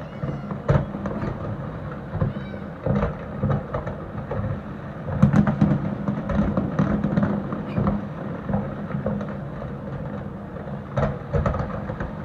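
Fireworks display going off in a steady barrage: repeated booms and sharp crackles over a continuous low rumble.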